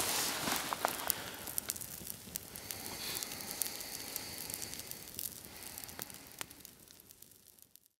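Campfire burning with irregular sharp crackles and pops over a steady hiss, fading out near the end.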